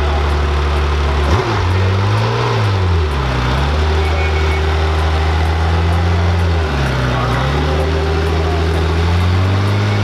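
Air-cooled flat-six of a Singer-modified Porsche 911 running with a steady low note, its pitch rising and dropping briefly a few times, with a single thump about a second in.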